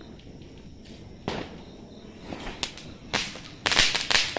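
Diwali firework rocket lit and flying off, giving spurts of whooshing, hissing noise that grow louder and more frequent in the last second or so.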